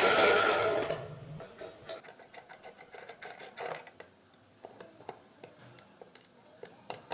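Meat grinder motor running with a steady whine, grinding snack pellets, then stopping about a second in. Scattered light clicks and rattles of pellets and parts follow.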